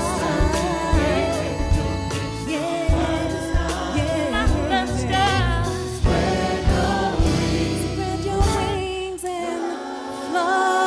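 Gospel choir singing with a live band, voices wavering with vibrato over bass and drums. The bass and drums drop out near the end, leaving the voices.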